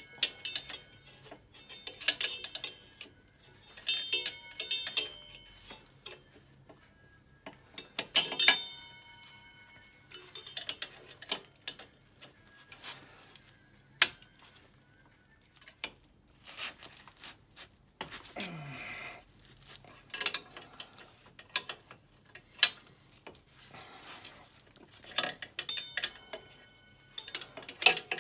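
Ratchet wrench clicking and metal tools clinking in short bursts every few seconds, as the bolts of an ATV's rear axle carrier are loosened to take up a slack drive chain.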